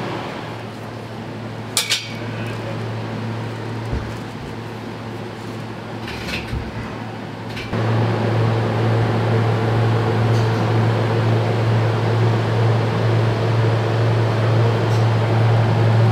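Walk-in cold room's refrigeration evaporator fans running with a steady low hum, which steps up louder about eight seconds in. Two short clinks sound in the first seven seconds.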